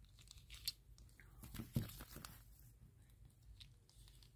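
Silicone suction cups of a squid-band fidget being pressed onto and peeled off a mirror: a few faint sharp pops and crackles, the loudest a little under two seconds in.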